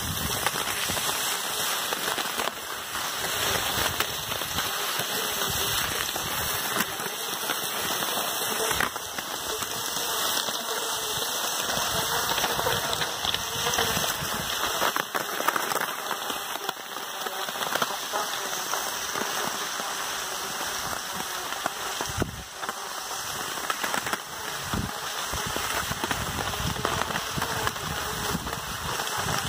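Steady crackling hiss of cross-country skis gliding over packed snow, with the malamutes' paws crunching in the snow alongside.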